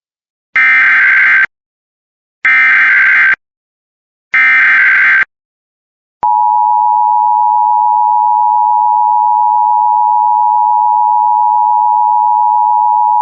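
Emergency Alert System tones. First come three one-second bursts of SAME header data, a screeching digital warble. Then, about six seconds in, the steady two-tone EAS attention signal starts and holds.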